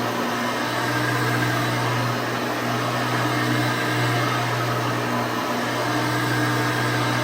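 Hoover Elite 600 upright vacuum cleaner running steadily, motor and brushroll on, with a low hum and an even rushing whir.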